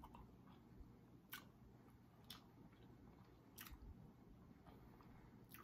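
Near silence broken by a few faint, sharp clicks: quiet eating sounds as fried red snapper is picked apart by hand and chewed.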